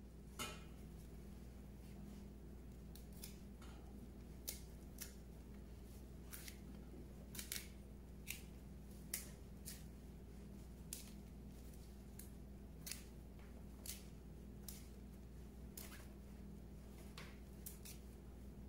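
Faint, crisp snaps of fresh huauzontle stalks breaking as the flower clusters are stripped off by hand, coming irregularly about once a second over a low steady hum.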